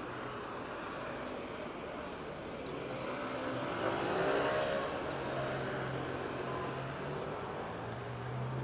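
Road traffic on a city street: a car passes about four seconds in, its engine note rising and falling as it goes by, over a steady low traffic hum. Another engine hum grows near the end.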